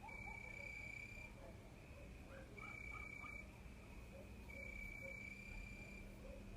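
Crickets singing: a faint, high, even trill that comes in stretches of about a second and repeats every couple of seconds, over a low background hum.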